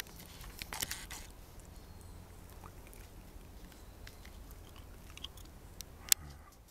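Footsteps crunching through dry leaf litter and twigs about a second in, then scattered faint crackles over a low rumble. A single sharp crack near the end is the loudest sound.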